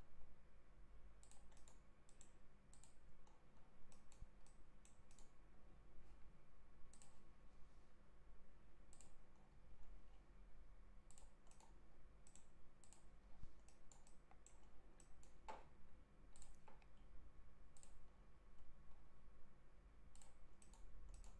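Faint computer mouse clicks at irregular intervals, made while picking points on screen, over a low steady hum.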